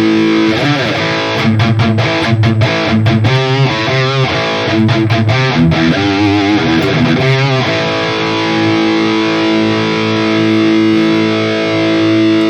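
High-gain distorted electric guitar played through a Valeton GP-200 amp model with a high cut: a chord rings, then a fast riff of picked notes, then a long held chord rings out near the end.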